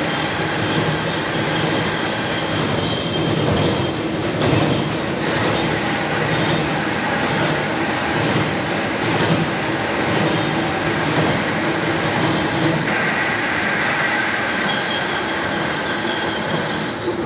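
Vertical turret milling machine running and drilling into metal workpieces: a steady mechanical whir with high squealing tones from the cutting, which swell and fade as the quill is fed down.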